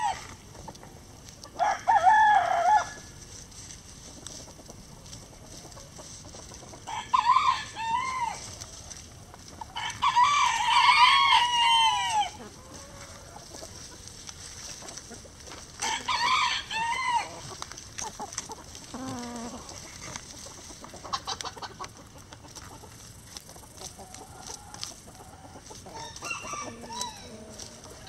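Roosters crowing several times, the longest and loudest crow about ten seconds in, with hens clucking quietly in between.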